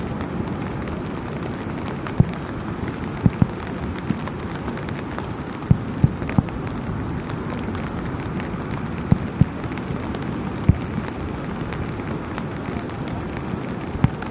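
Fireworks going off: about ten sharp bangs at irregular intervals, some in quick pairs, over a steady rushing noise.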